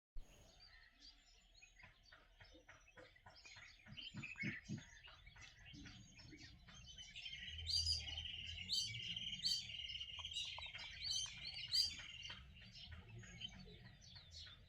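Birds chirping: many short, high calls, thickening into a dense bout of chatter about halfway through, over a faint low hum.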